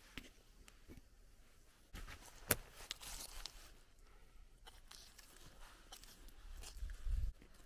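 Rustling and crackling of cloth game bags and a plastic tarp as frozen elk quarters are handled and pulled open, with scattered small clicks and a sharper tick about two and a half seconds in. A low bump comes near the end.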